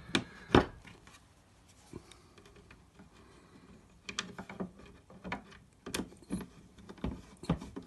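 Scattered sharp clicks and knocks of the casing halves of a tractor's Datatronic computer unit being handled and fitted back together by hand, the loudest about half a second in and a quick cluster around four seconds.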